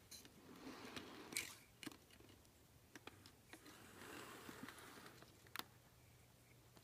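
Faint whir and small irregular clicks of a model steam tank locomotive running past on its track, over a low steady hum.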